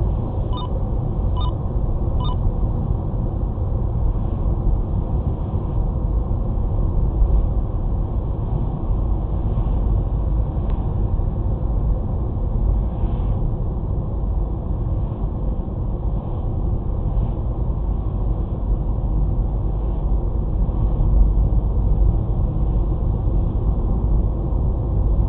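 Steady low rumble of road and engine noise inside a moving car's cabin. In the first couple of seconds a Sho-Me 1785 radar detector gives three short alert beeps, a little under a second apart, then stops.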